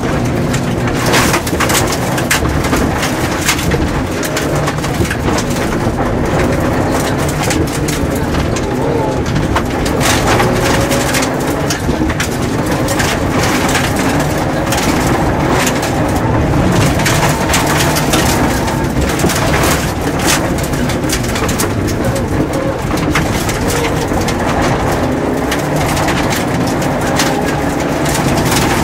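Mitsubishi Lancer Evolution rally car at speed on a gravel stage, heard from inside the cabin: its turbocharged four-cylinder engine running hard with the pitch rising and falling through the gears, over a constant clatter of gravel striking the underbody and wheel arches.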